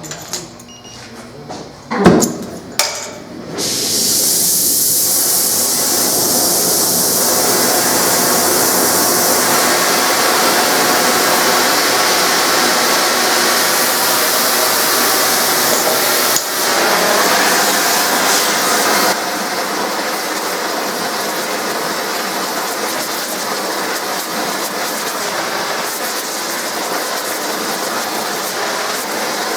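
A gas torch starts burning with a steady, loud rushing hiss after a loud thump about two seconds in, preheating aluminum before stick welding it.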